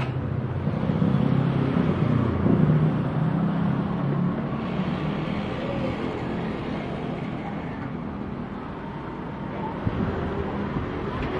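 Cessna 172M Skyhawk's four-cylinder piston engine and propeller droning overhead, loudest in the first few seconds and then slowly fading as the plane moves away.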